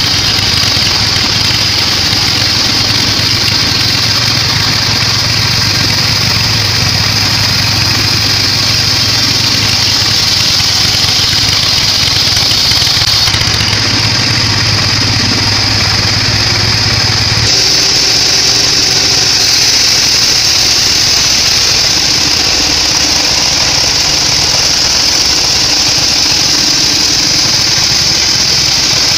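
Band sawmill running and sawing a weru log: a loud, steady machine drone with a bright, high hiss from the blade. About two-thirds of the way through, the low hum drops away and the hiss grows brighter.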